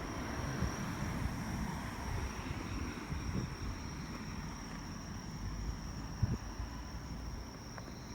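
Steady high-pitched trilling of night insects, likely crickets, over an uneven low rumble.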